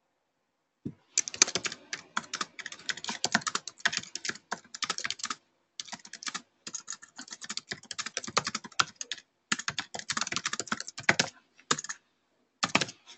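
Typing on a computer keyboard: a fast run of key clicks starting about a second in, broken by a couple of brief pauses, then a few last keystrokes near the end.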